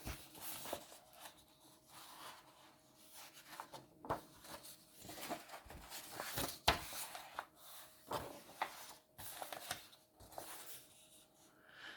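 Paper rustling and rubbing with soft knocks, a picture book being handled and its pages turned.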